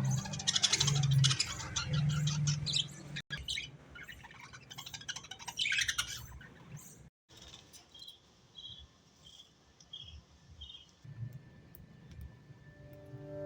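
Budgerigars chirping and chattering in quick high notes. The sound cuts out briefly twice, and later comes a run of about six short, evenly spaced high calls.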